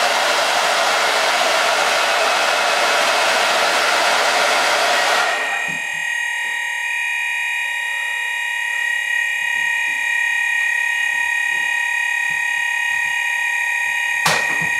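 Hairdryer blowing at a heat detector for about five seconds, then switched off. An ESP fire-alarm bedroom sounder is then heard giving a steady continuous tone, the sign that the heat detector has tripped. A sharp click near the end.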